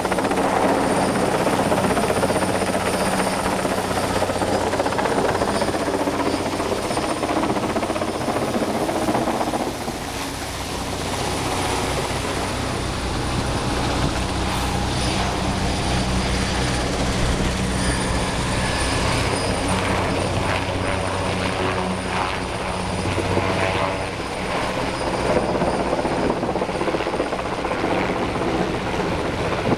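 Sikorsky helicopter flying overhead, its rotor and engine making a steady, continuous noise that eases slightly about a third of the way through before returning.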